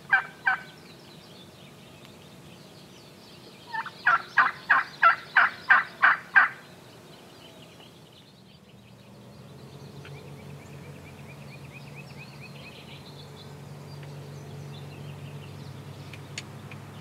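Wild turkey tom gobbling: a loud, rapid rattling run of about ten notes, roughly four a second, lasting under three seconds, about four seconds in. The last notes of a previous gobble are heard right at the start.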